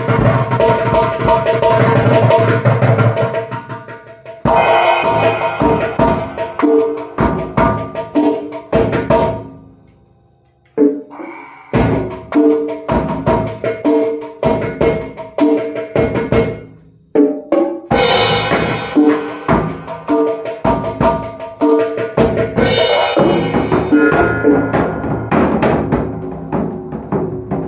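Solo drumming: quick runs of strokes on pitched drums. There are a couple of brief pauses, one about ten seconds in and another near seventeen seconds, before the playing picks up again.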